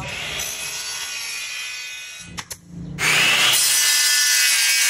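Electric miter saw running and cutting through a wood-plastic composite board. About three seconds in, a louder, higher-pitched cut from a handheld power cutter takes over.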